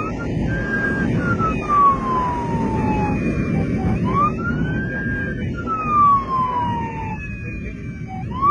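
Police motorcycle siren wailing, its pitch rising quickly and then falling slowly, one cycle about every four seconds, over the low rumble of the moving motorcycle.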